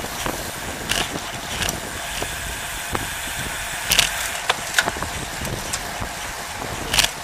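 Road bikes rolling in a group, heard from a camera mounted on a bike: a steady rushing hiss of tyres and air with several sharp clicks and knocks, the loudest about four seconds in and near the end.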